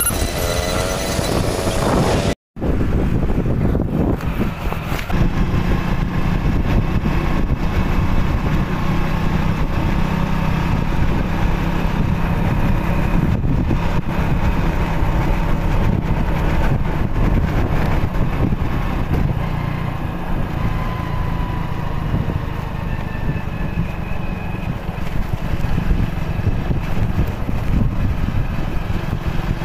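Motorcycle being ridden along a road: steady engine and wind and road noise. The sound cuts out for an instant about two seconds in.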